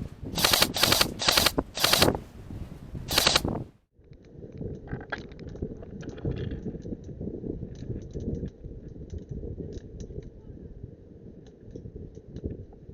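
Airsoft gun firing about five short full-auto bursts in the first three and a half seconds. The sound then cuts off suddenly and gives way to a low rumble of wind and handling on the microphone, with faint scattered clicks.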